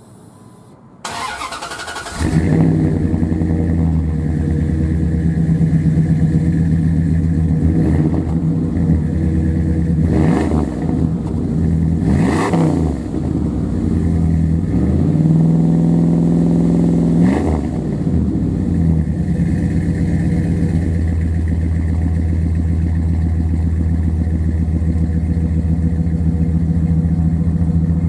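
Cold start of a 2000 Dodge Ram 1500's 5.9 Magnum V8, heard at the exhaust tip through headers and a Jones muffler. The starter cranks briefly, the engine catches and runs with a deep, mellow exhaust note. Its pitch rises and falls several times before it settles into a steady idle.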